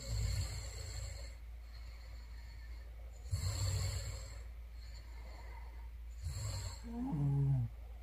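A woman snoring: three snoring breaths about three seconds apart. The last ends in a voiced snore that slides down in pitch, the loudest sound here.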